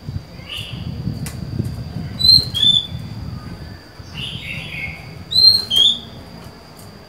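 Female Oriental magpie-robin calling: a pair of sharp, clear whistled notes a couple of seconds in, repeated about three seconds later, with softer, rougher calls between, over a low background rumble.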